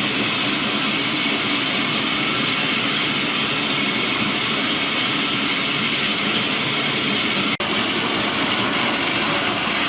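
OLIVINOX 300 mini continuous olive-oil extraction machine running, a steady, loud, hissing machine noise with a momentary break about three-quarters of the way through.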